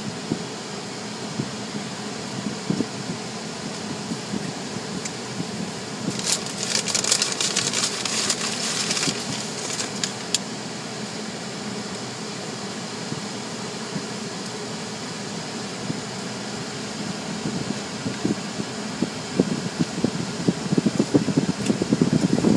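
Steady fan-like hum heard from inside a car cabin. About six seconds in comes a few seconds of high hissing, and near the end louder uneven rumbling with knocks.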